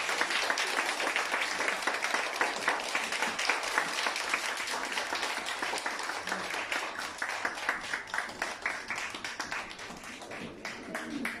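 Small audience applauding, dense hand clapping that thins out and fades near the end.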